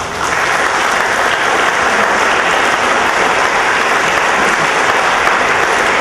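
Audience applause, starting suddenly and continuing steadily.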